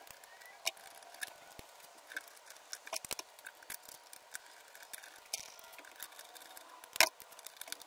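Scattered small metal clicks and ticks as 10mm bolts are threaded by hand into a throttle body flange with a socket on an extension. A louder pair of clicks comes about three seconds in and a sharp click about seven seconds in.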